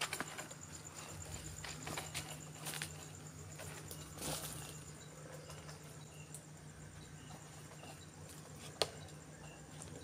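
Crickets trilling steadily at night, a high even pulsing with faint short chirps, under a few scattered light clicks and knocks, the sharpest near the end.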